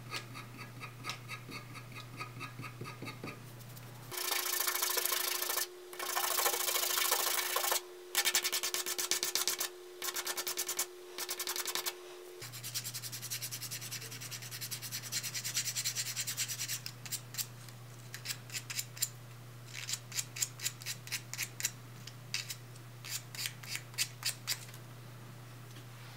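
Small 3D-printed plastic lure body being rubbed and sanded by hand, in runs of scratchy strokes with short pauses. The strokes get quicker and shorter toward the end.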